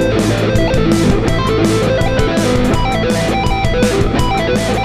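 Ibanez electric guitar picking quick sixteenth-note arpeggios, alternating A minor and E minor shapes, over a backing track of A minor 7 and A minor 11 chords. The E minor arpeggio laid over the A minor chord is a superimposition that gives an A minor 9 / minor 11 colour.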